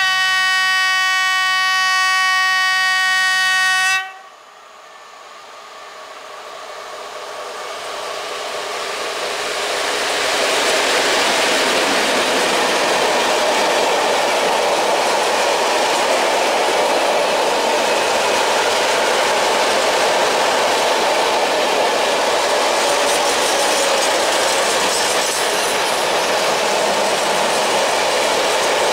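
ET22 electric freight locomotive sounding one long horn blast of about four seconds, the Rp1 "Attention" warning given because of faulty barriers at a level crossing; the blast cuts off sharply. Then a freight train of open coal wagons rolls past, its wheel and rail noise building over several seconds and then holding steady and loud.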